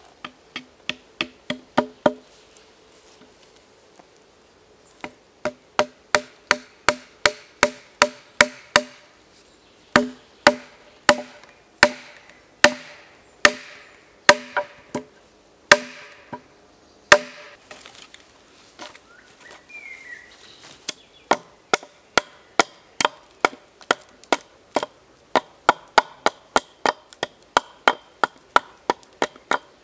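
Hatchet chopping wood: runs of quick, even strikes, two or three a second, with two short pauses. The earlier strikes ring briefly.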